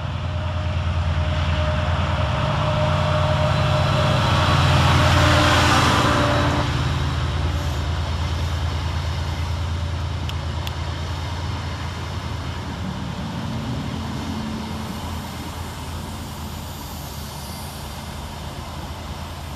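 A Class 68 diesel-electric locomotive and its coaches arriving, with a deep steady diesel engine drone. The rolling rush of wheels on rail grows to its loudest about five seconds in as the coaches pass close by, then slowly dies down as the train slows.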